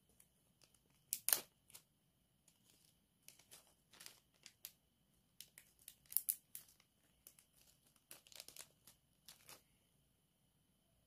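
Clear plastic bag crinkling as it is handled, in irregular bursts of crackles, loudest about a second in.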